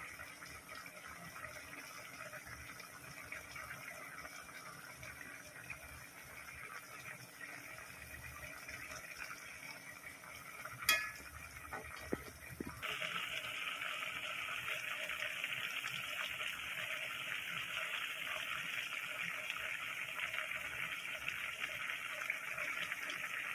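Pork and soy-sauce braising liquid simmering in a wok, a steady bubbling hiss that gets louder about thirteen seconds in. A single sharp clink of the metal spoon against the pan comes about eleven seconds in.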